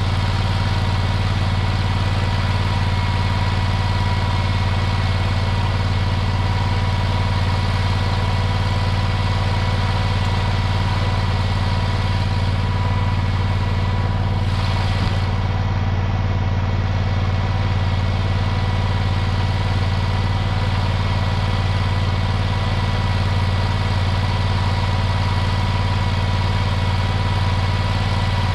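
An engine idling steadily with an even low hum that does not change.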